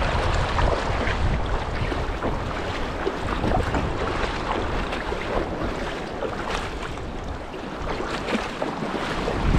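Wind buffeting the microphone, a low rumble that eases off mid-way, over shallow seawater lapping and sloshing with small splashes.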